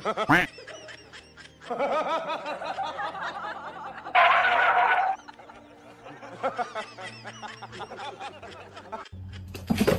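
A person laughing, snickering in bursts, with a loud outburst about four seconds in. A short sharp sound comes right at the start.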